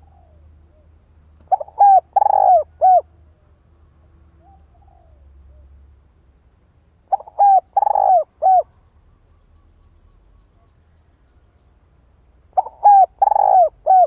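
Spotted dove cooing its advertising call three times, each phrase a run of about four coos with a longer, stronger third note.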